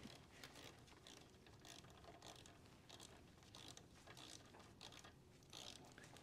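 Ratcheting torque wrench clicking faintly and irregularly as it is swung back and forth, running down the front axle pinch bolt.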